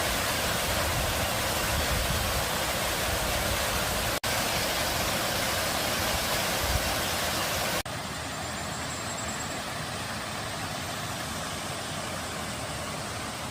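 Water from small garden waterfalls and a fountain splashing and rushing steadily. The sound cuts abruptly twice, at about 4 and 8 seconds, and is a little quieter after the second cut.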